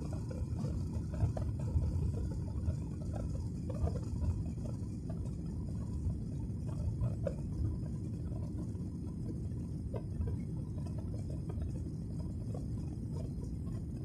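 Steady low rumble of a jet airliner's engines and rushing air, heard from inside the passenger cabin during the climb after takeoff, with a few faint clicks.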